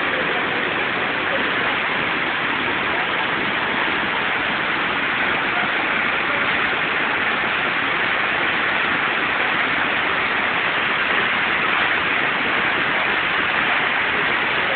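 Muddy floodwater of a river in spate rushing past, a steady loud rush of water without a break.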